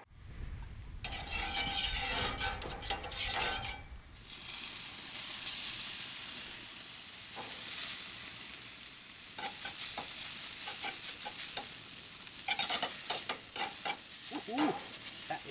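Oil and onions frying on a very hot flattop griddle: a loud, even sizzle that starts about four seconds in, with spatula scrapes and clicks as the onions are stirred from about nine seconds in.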